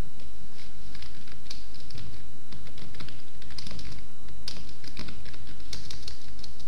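Typing on a computer keyboard: an irregular run of quick key clicks as a short phrase is typed, over a steady low hum.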